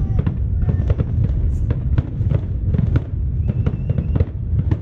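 Fireworks display, with shells bursting in quick succession: several sharp bangs a second over a continuous low rumble of further explosions.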